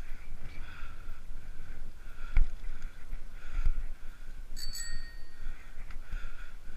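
Bicycle bell rung with a quick double ding about four and a half seconds in, its ring fading within a second, over steady wind and tyre noise of a bike rolling on pavement. A sharp knock, the loudest sound, comes about two and a half seconds in, with a smaller one about a second later.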